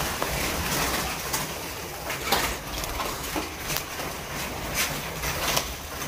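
A flock of small caged songbirds in an aviary: scattered short chirps and wing flutters as the birds fly between perches, over a steady hiss.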